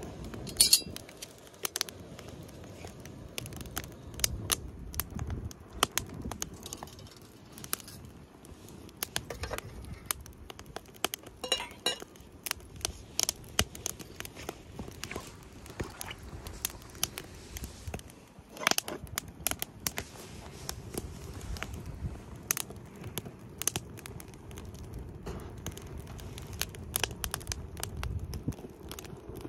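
Wood fire crackling, with irregular sharp pops over a low steady rumble.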